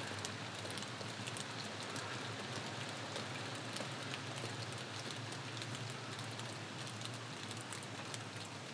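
Light rain pattering steadily: a soft hiss scattered with many small drip ticks.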